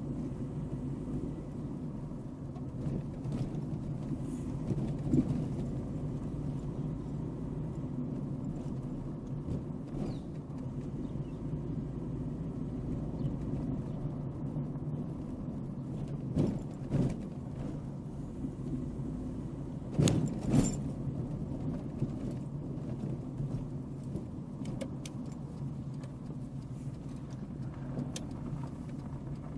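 Car driving slowly along a street: steady low engine and tyre rumble, with a few brief knocks and rattles, the loudest pair about twenty seconds in.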